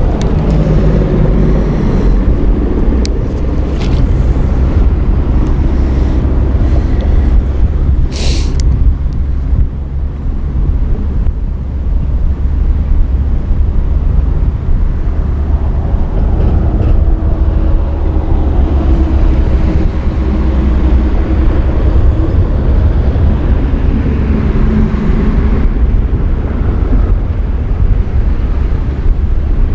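Wind buffeting the microphone: a loud, steady low rumble that flutters constantly, with a few faint clicks and a short hiss about eight seconds in.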